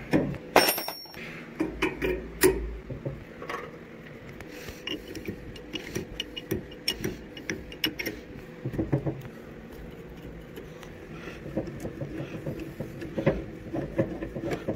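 Metal hand tools clinking and clicking: a combination wrench is taken from a plastic tool case and worked on steel bolts, then pliers are set on a pipe fitting. The clicks and knocks come irregularly, the sharpest with a brief metallic ring near the start, over a faint steady hum.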